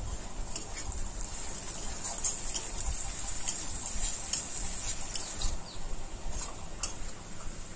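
Sliced onions sizzling in hot oil in a karahi as they are fried brown for birista, with sharp crackles and the scrape of a metal spatula as they are stirred.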